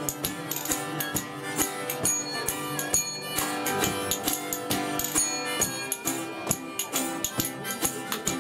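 Spoons clacked in a fast, steady rhythm over two strummed acoustic guitars and a harmonica, in an upbeat folk-blues tune, with a foot-pedal drum thumping low on the beat.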